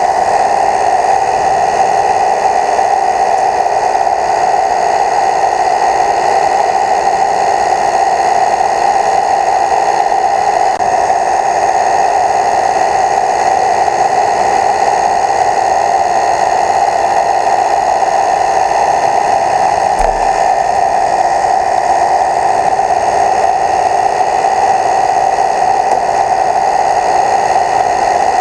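A small motor running with a steady, even whir that does not change in pitch or level.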